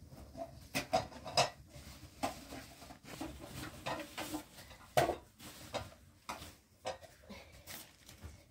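Pots and utensils knocking and clattering as they are rummaged out of a plastic bag, with rustling in between: a series of irregular sharp knocks, the loudest about a second in and again about five seconds in.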